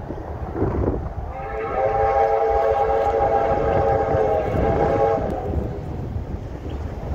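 A train whistle blows one long blast of about four seconds, several notes sounding together as a chord, over the low rumble of the passing train.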